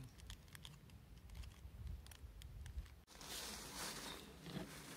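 Faint crinkling and light clicks of a plastic rice-ball wrapper being handled. About three seconds in it cuts abruptly to a steady rushing hiss.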